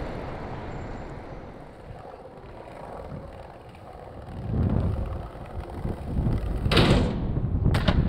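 Skateboard wheels rolling over stone paving, starting about halfway through, with two sharp clacks of the board about a second apart near the end.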